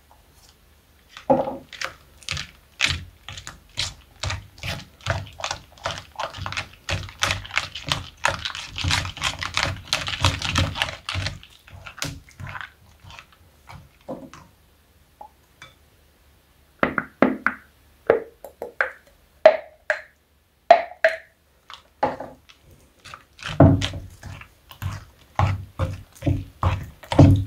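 Silicone spatula stirring wet slime in a bowl: quick, clicky wet strokes, fast and close together for the first ten seconds or so, then a lull and slower separate strokes. The glue mixture is thickening into slime as it is stirred.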